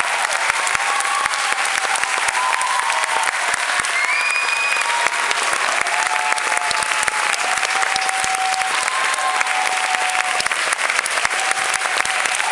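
Theatre audience applauding steadily after a performance.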